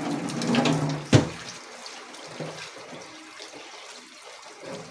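Tap water running into a kitchen sink and splashing over raw chicken pieces being rinsed in a metal bowl. One sharp knock about a second in, after which the water runs more quietly.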